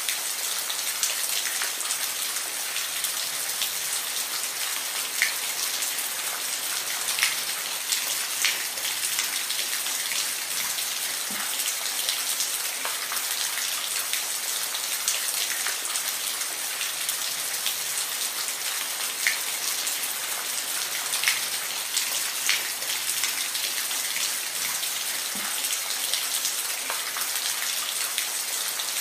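Steady rain falling, with a constant hiss and scattered individual drops ticking sharply on a surface.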